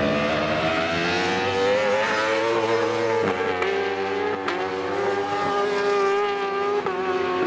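Racing superbikes' inline-four engines at high revs, accelerating out of a corner. The pitch climbs over the first three seconds, changes about three seconds in, then holds fairly steady.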